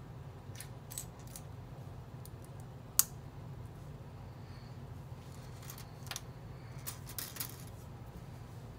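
Small plastic building-brick pieces clicking as they are handled and pressed together, with one sharp click about three seconds in and a cluster of quick clicks near the end.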